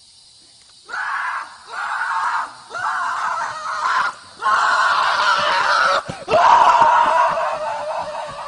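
Loud, breathy shrieking in about five bursts, starting about a second in and fading near the end.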